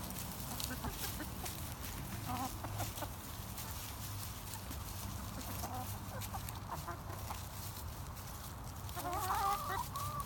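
Backyard chickens clucking softly as they feed, in short scattered calls, with one louder, wavering call about nine seconds in.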